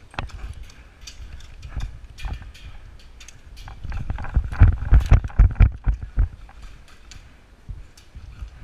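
Irregular knocks and thuds over a low rumble, thickest from about four to six and a half seconds in.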